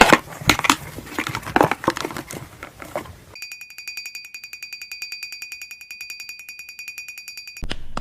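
A few seconds of scattered clicks and taps, then a steady high electronic alarm-like beeping, pulsing rapidly and evenly for about four seconds, which cuts off suddenly near the end.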